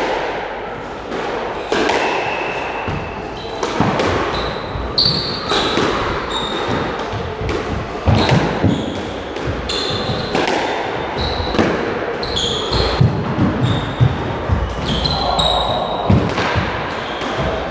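A squash rally: the ball cracking off rackets and the court walls every second or two, each hit ringing on in the enclosed court, with trainers squeaking briefly on the wooden floor as the players lunge and turn.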